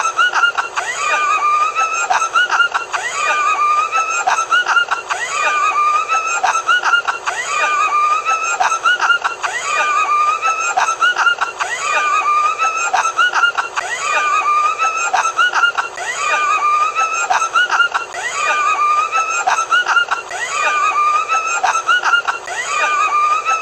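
A man's high-pitched, wheezing laugh, the same laugh repeating over and over at an even pace.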